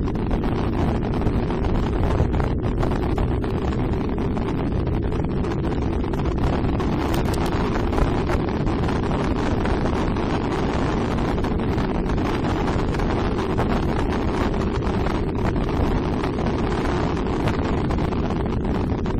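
Steady wind buffeting on the microphone of a motorcycle riding along at road speed, with its engine running underneath.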